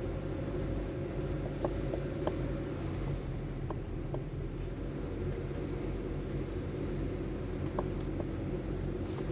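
Car driving slowly on a paved road, heard from inside the cabin: a steady low engine and tyre hum, with a few scattered light ticks.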